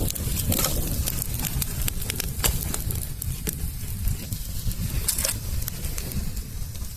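Wood campfire crackling, with scattered sharp pops, over a low steady rumble.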